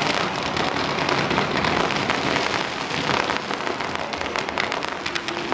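Firework display crackling continuously: a dense hiss of countless tiny pops, steady in level, from crackling sparks showering up from the ground.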